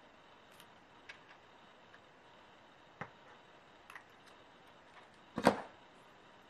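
Faint clicks and ticks of small gear cut-outs being stuck onto a paper card. About five and a half seconds in, a louder thump as a hand presses down on the card on the craft table.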